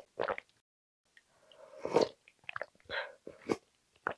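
Close-miked slurp of budae-jjigae broth from a wooden spoon, building up and peaking about two seconds in, followed by a few short mouth sounds as the broth is tasted.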